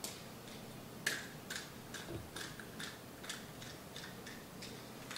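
Light, irregular metallic clicks and ticks, about two or three a second, as a small metal fitting is handled and spun loose by hand.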